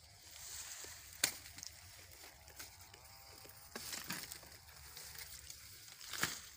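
Sugarcane stalks being cut: dry cane leaves rustling, with three sharp cracks, about a second in, about four seconds in and near the end.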